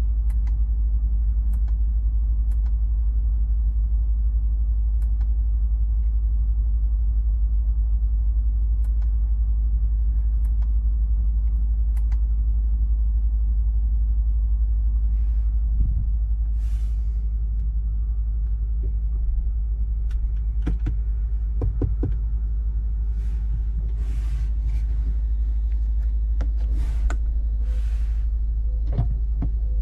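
Steady low rumble inside a parked electric car's cabin, with scattered light clicks. A few short rustles and thumps come in the second half.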